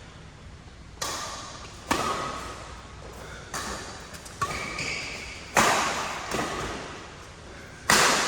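Badminton rally: rackets striking a shuttlecock, about seven sharp hits roughly a second apart, each ringing on in a large hall's echo.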